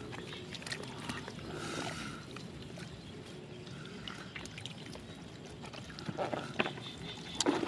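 Hands sloshing and splashing through shallow muddy water, with scattered small clicks, busier near the end. Short calls of a small animal recur a few times in the background.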